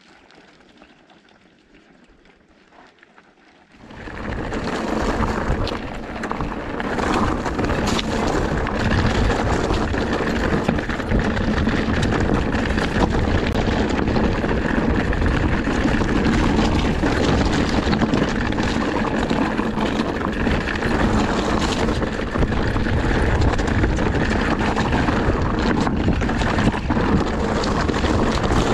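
Wind rushing over the microphone and tyres and frame rattling on the trail as a Lapierre GLP2 electric enduro mountain bike rides singletrack. The noise comes in suddenly about four seconds in after a quiet start and stays loud and steady.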